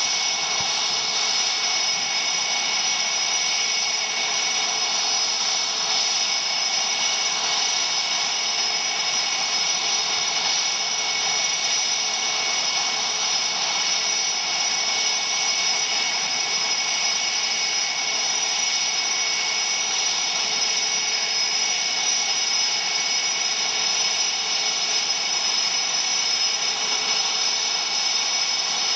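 CF-18 Hornet fighter idling on the ground, its twin General Electric F404 turbofans giving a steady high-pitched whine over a broad hiss.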